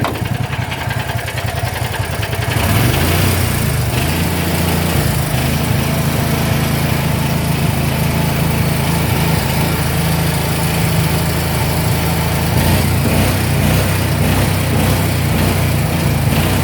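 Small engine running steadily, getting louder about two and a half seconds in and then holding an even hum.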